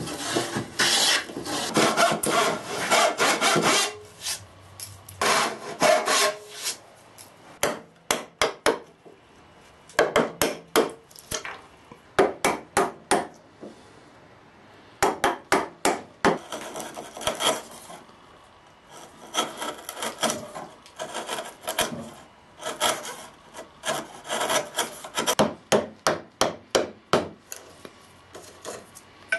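A hand plane taking shaving strokes along the edge of a pine board, followed by a chisel chopping out a mortise in pine: many sharp wooden knocks in quick clusters.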